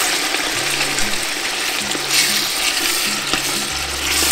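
Diced duck and andouille sausage sizzling steadily in hot oil in a pot on high heat as they brown.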